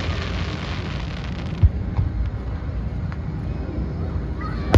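Fireworks display: crackling fades out in the first second and a half, then a dull boom, a few faint pops, and a sharp loud bang of a shell bursting at the very end, over a steady low rumble.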